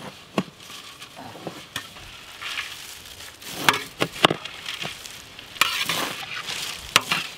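Crushed potato chips mixed with chopped vegetables being stirred in a large aluminium pot with perforated steel ladles: a steady crunchy rustle, with a few sharp clinks of the ladles against the pot.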